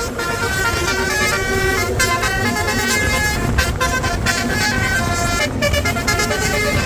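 A bus's basuri telolet horn playing a melody of quick stepped notes over a steady low rumble.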